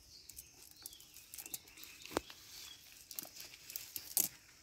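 A cast net being handled and pulled over dry ground: faint scattered rustling with small sharp clicks, the sharpest about two seconds in and again near the end.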